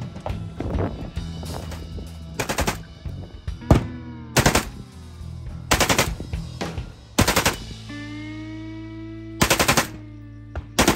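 AK-pattern rifle fired on full automatic in about six short bursts of a few rounds each, spaced a second or two apart, over background music.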